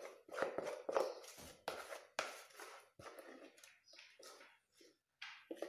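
A spatula scraping thick cake batter out of a mixing bowl, the batter dropping into a metal tube cake pan: a run of irregular scrapes and soft knocks.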